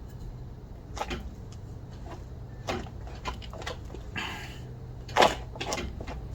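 A few scattered metallic knocks and clanks of a lug wrench on a car wheel as a very tight lug nut is forced loose, with a short scrape about four seconds in and the loudest knock about five seconds in. A steady low hum runs underneath.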